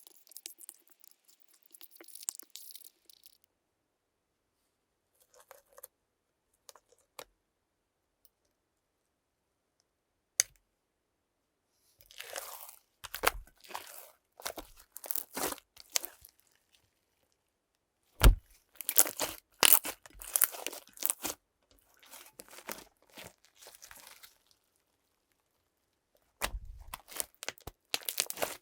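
Slime being squished and worked by hand close to the microphone, giving crackly, crinkly sounds in several bursts separated by silent gaps, with a couple of sharp clicks between them.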